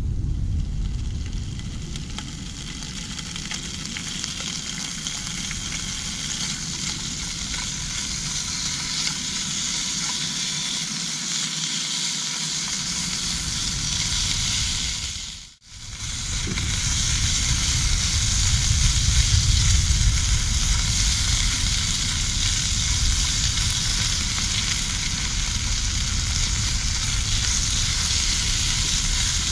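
Food sizzling in a frying pan over a camp stove: a steady hiss with a low rumble underneath, cut off briefly about halfway through and then going on.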